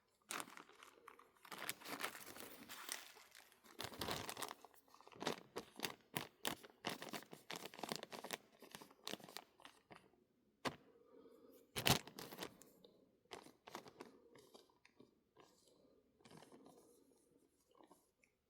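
Scratchy rustling and irregular clicks of small objects being handled at a workbench, with a sharper click about twelve seconds in.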